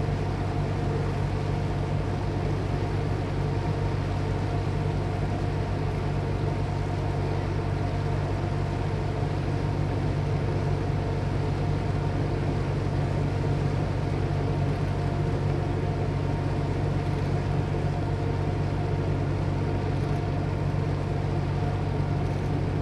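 A ferry's engine running steadily, heard on board: a constant low hum with several steady tones above it.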